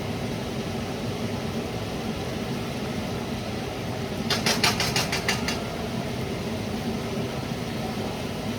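Steady mechanical hum in a kitchen, with a quick run of about eight sharp clicks a little past the middle, lasting just over a second.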